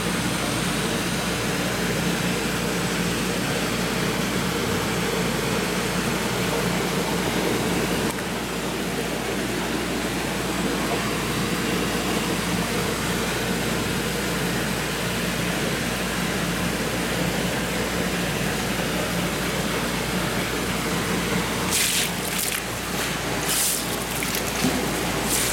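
Steady running water and hum of a seawater tank's circulation. Near the end come several splashes as the octopus churns the surface and spouts seawater.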